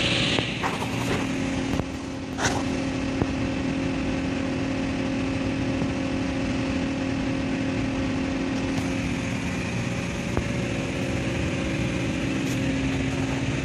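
Steady drone of running industrial machinery with a constant mid-pitched hum, and a few sharp clicks in the first couple of seconds.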